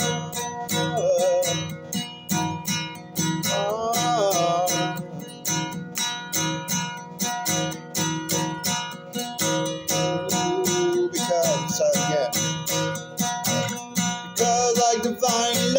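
Acoustic guitar strummed in a steady rhythm, about four strums a second, playing an instrumental passage.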